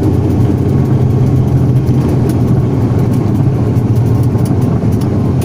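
Steady low rumble of an airliner's engines and airframe heard inside the passenger cabin while the plane rolls on the runway after landing.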